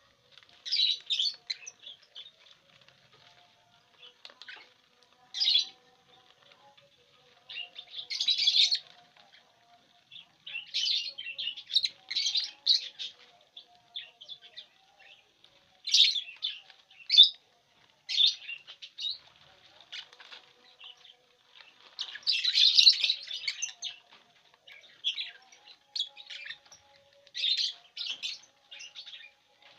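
Lovebirds giving short shrill chirps in bursts every second or two, mixed with rustling of the dry corn husks they are tearing at for nest material.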